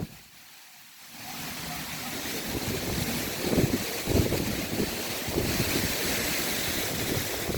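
Strong, gusty wind ahead of a severe thunderstorm, buffeting the microphone. It drops away briefly at the start, then picks up about a second in and keeps blowing.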